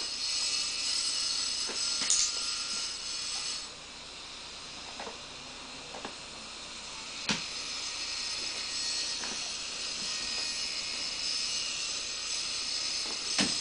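Steady hiss of background noise with a few short, sharp clicks, the loudest about two seconds in, at about seven seconds and near the end.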